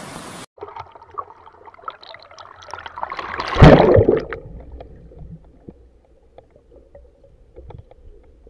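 Steady river rush that cuts off half a second in, then muffled underwater sound with faint clicks and a swell of gurgling water that rises to a loud rush about three and a half seconds in and fades away.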